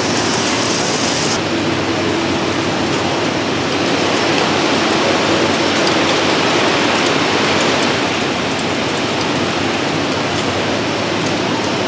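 Steady, dense mechanical noise of factory machinery, with a faint steady hum in the middle. About a second in, the highest hiss drops away.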